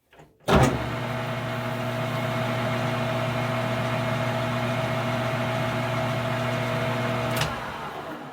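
Metal lathe switched on with a sudden start, running at a steady hum with its motor tone, as a small chamfer is cut on a hole; near the end it is switched off and winds down.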